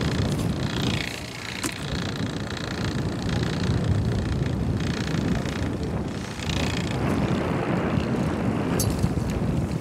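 Steady rumbling wind and sea noise on a fishing boat's open deck, with wind buffeting the microphone, and a few sharp clicks about nine seconds in.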